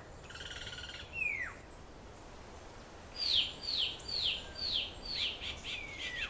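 Forest birds calling: a short buzzy trill, then a falling whistle, then a run of six sharp down-slurred notes about two a second, with another falling whistle near the end.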